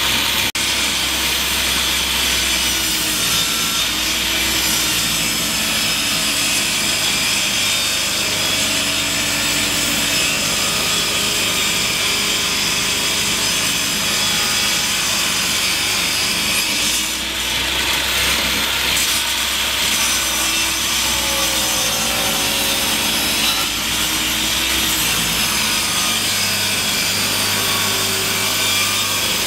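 Worx benchtop table saw running, its blade ripping through a hardwood board fed by a push stick. The sound is a steady, loud saw noise whose low note bends up and down as the blade takes the wood.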